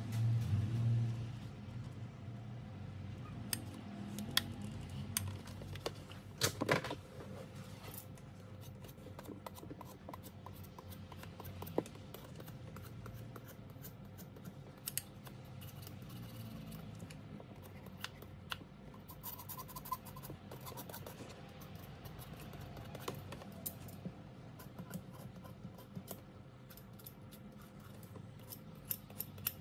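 A transformer soldering gun buzzing with a low mains hum for about the first second as it heats a solder joint on LED strip wires, then scattered light clicks, taps and scrapes of handling wires and tools on a hard work table over a faint steady hum.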